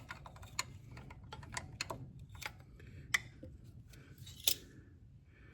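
Light, scattered metallic clicks and taps of hand tools working on a Case 770 diesel's valve train: wrench, screwdriver and feeler gauge against the rocker arm adjusting screw and lock nut while the exhaust valve lash is set. A louder tick comes about three seconds in and another about a second and a half later.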